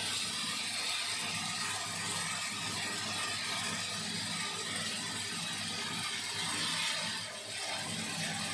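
Moringa seed husk-cleaning machine running steadily at a turned-down, slow speed: a low mechanical hum with an even hiss above it, dipping briefly a second before the end.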